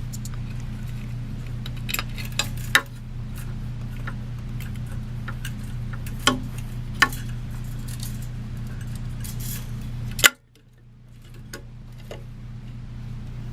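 Clicks, clinks and knocks of metal and plastic ceiling fan parts being handled and fitted together, over a steady low hum. The hum drops out after the loudest click, near the ten-second mark, and slowly comes back.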